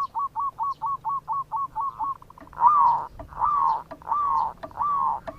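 Zebra dove (perkutut) cooing. It opens with a quick run of short clipped notes, about six a second, then from about two and a half seconds in gives a slower series of longer, slightly falling coos.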